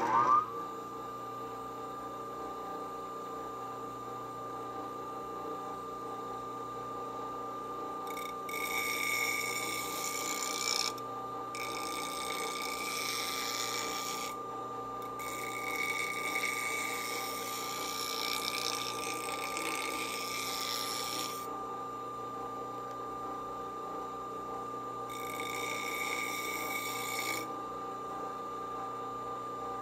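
Old cast-iron bench grinder reaching full speed and running with a steady whine. A steel bench chisel is ground against its 120-grit wheel in four passes of hissing grinding, starting about eight seconds in; the longest lasts about six seconds.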